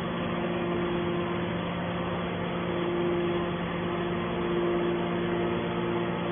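Hydraulic power unit of a 200-ton scrap metal baler running with a steady hum, a higher tone fading in and out over it.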